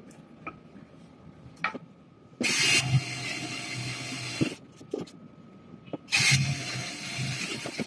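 Pink WorkPro cordless drill boring holes into a wooden tray's side for handle screws, running in two bursts of about two seconds each, loudest as each starts. A few light clicks of handling come between the bursts.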